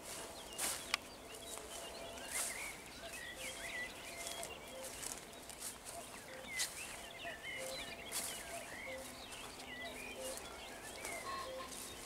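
Dawn chorus of many small songbirds singing and chirping over a meadow, with a low note repeating about once a second. A few brief sharp noises cut across it, the loudest about a second in.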